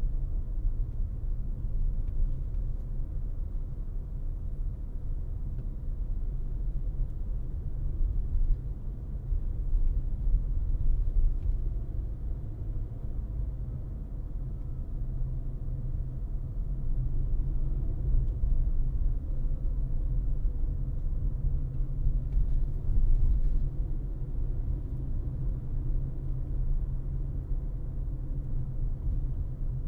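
Car driving on the road: a steady low rumble of tyres and road noise.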